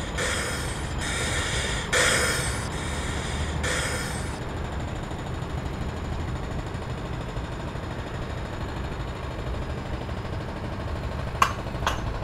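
Steady low rumble of city background ambience, like distant traffic. In the first four seconds there are about five evenly spaced hissing swishes, and near the end there are two sharp clicks.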